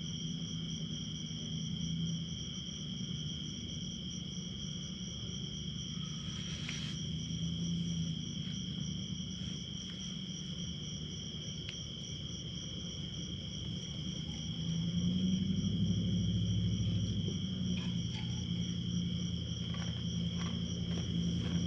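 Crickets trilling steadily, a continuous high ringing, over a low steady hum that grows louder about two-thirds of the way through.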